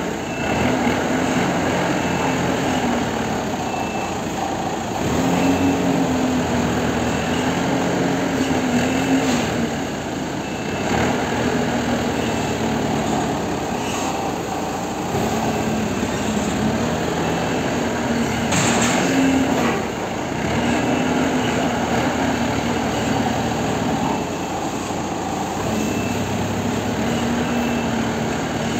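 Forklift engine running under load, its pitch rising and falling every few seconds as it is revved while working, with short high beeps at intervals.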